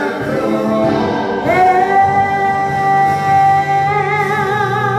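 Gospel worship song: singing ends a line on the word "own", then a long held note that starts to waver near the end.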